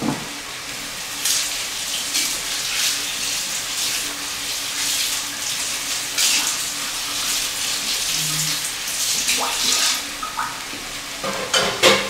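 Kitchen tap running as a cutting board is rinsed under it, the water cutting off sharply about ten seconds in, then a few knocks. Underneath, a pan of meat and tomato paste sizzles on the stove.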